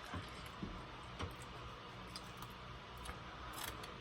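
Faint chewing and mouth clicks while eating: a few sparse soft clicks over a low steady hum.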